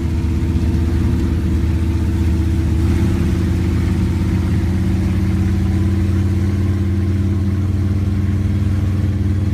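Engine of a lifted, road-legal monster pickup truck running steadily while it drives, holding an even low pitch with little change in revs.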